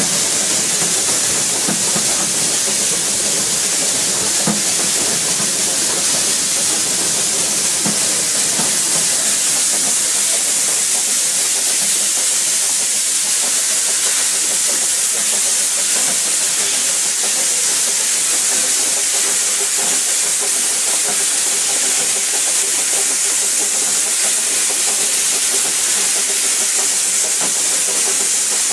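Narrow-gauge train hauled by Darjeeling Himalayan Railway steam locomotive No. 19 running along the line, heard from an open carriage as a steady, even hissing rush.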